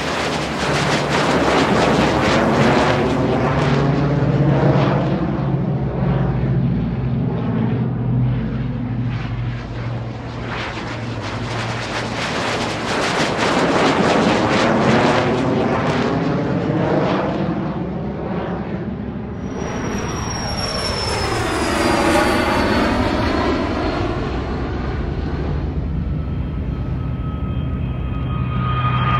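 Jet aircraft engines at take-off power passing by, swelling and fading in several waves. A little past the middle a high turbine whine falls in pitch as one goes past. Near the end a steady high whine of jet engines at low power comes in.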